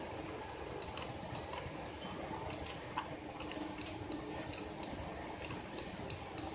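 Light, sharp clicks at uneven spacing, a few a second, over a faint steady hum.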